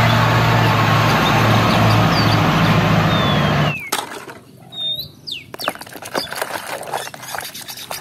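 A full-size school bus's engine running with a steady low hum as the bus drives along, cutting off suddenly about four seconds in. After it comes water splashing with small knocks and clicks as a plastic toy is swished in a basin of muddy water.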